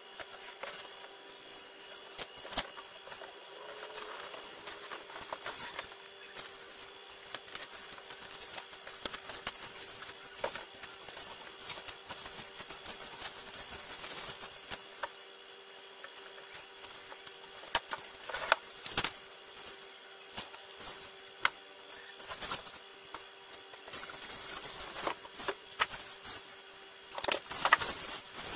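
A keyboard's cardboard box and packing being opened and handled: scattered clicks, taps and knocks with rustling, and a few louder knocks in the second half.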